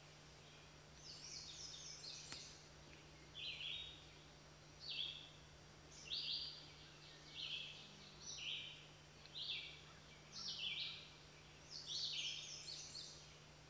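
Birds chirping faintly: short, harsh call notes repeated roughly once a second, some in quick pairs or clusters, over a steady low hum.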